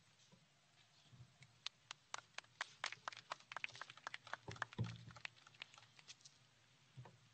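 A small group of people clapping: a light, scattered applause of sharp claps that starts about a second in and dies away about six seconds in. A dull low thump sounds about halfway through.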